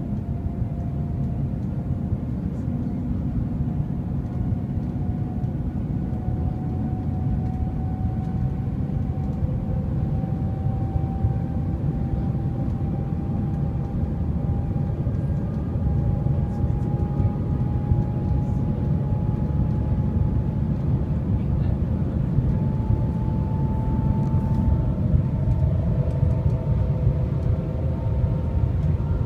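Shanghai Maglev Transrapid train running at speed, heard from inside the carriage as a steady low rumble, with a faint whine that rises slowly in pitch.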